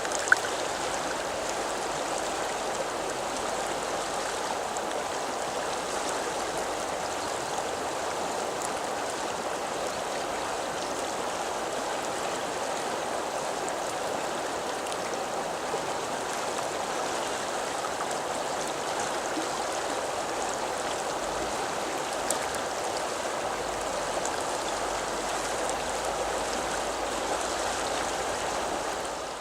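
River or stream water flowing in a steady, unbroken rush, with one sharp tick just after the start.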